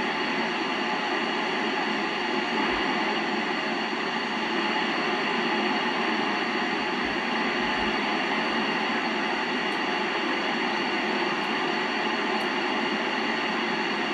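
Steady hiss of FM receiver static from a Yaesu FT-847 with its squelch open, tuned near the ISS repeater's 437.800 MHz downlink while the operator listens for a reply; no station is coming back.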